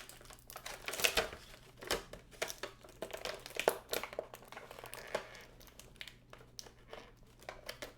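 Plastic packaging of a boxed action figure being handled and crinkled as an interchangeable hand accessory is worked free, with irregular crackles and sharp clicks, the loudest about a second in and near the middle.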